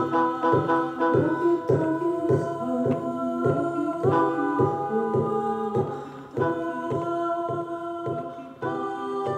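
Background music: an upbeat electronic-pop tune with a steady beat and held vocal-like notes.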